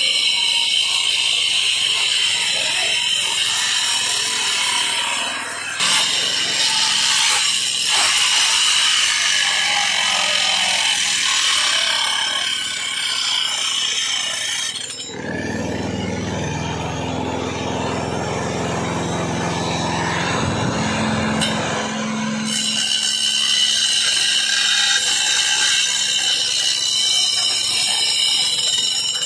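Electric angle grinder running with a steady high whine as its disc cuts grooves into a brick slab. About halfway through, the whine gives way to a lower, rougher noise for several seconds, then returns.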